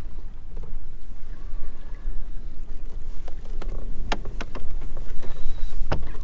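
Steady low rumble of wind on the microphone and water against the hull of a bass boat in choppy water. A few sharp clicks and knocks come about four seconds in and again near the end.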